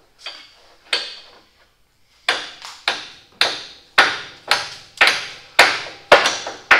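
Hand sledge striking steel on a seized engine mount bolt at the truck's frame: two light taps, then, from about two seconds in, a steady run of hard, ringing blows, about two a second. The bolt is stuck because a washer has seized to the mount bushing.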